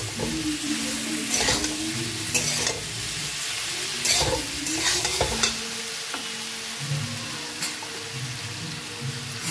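Chunks of pumpkin and potato sizzling in oil in a metal kadai while a spatula stirs and scrapes them against the pan, with several scraping strokes in the first two-thirds and a steady frying hiss throughout.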